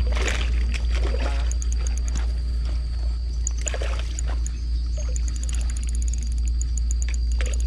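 Light splashing and trickling water from a hooked barramundi struggling at the surface close to the bank, heard over a steady low rumble of wind on the microphone, with faint high chirping throughout.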